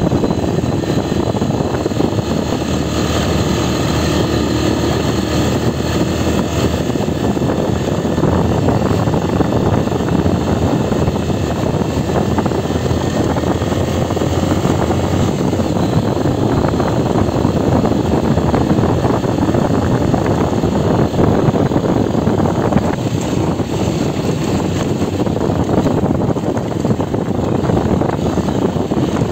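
Honda CG Titan 125 KSE's single-cylinder four-stroke engine running steadily under way, mixed with a constant rush of wind over the handlebar-mounted phone's microphone.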